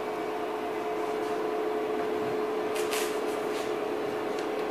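DCC sound decoder in an OO gauge Hattons Class 66 model locomotive playing a steady diesel engine drone through its small speaker as the train approaches. A few light clicks come about three seconds in.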